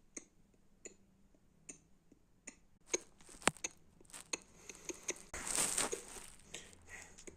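Scattered light clicks and ticks, with one sharper click about three and a half seconds in and a short rush of noise just after five seconds.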